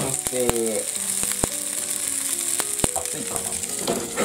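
Pan-fried scallop gyoza sizzling in oil in an uncovered frying pan, a steady hiss with sharp pops of spitting oil now and then. The steaming water has cooked off and the skins are crisping on the bottom.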